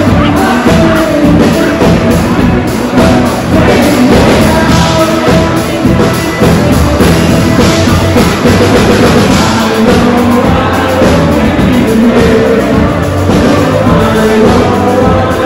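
Rock-and-roll music from a live band: guitar and drums with a singing voice, played without a break.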